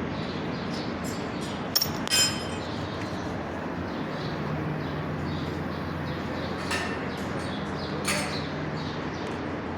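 Two sharp metallic clinks about two seconds in, the second ringing briefly, as metal parts or a tool strike each other, then a few fainter knocks over a steady background hum.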